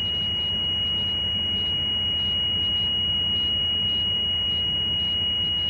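Bus's low-air-pressure warning buzzer sounding one steady high tone over the engine running at high idle: the brake air pressure is still below about 70 psi while the compressor builds it back up.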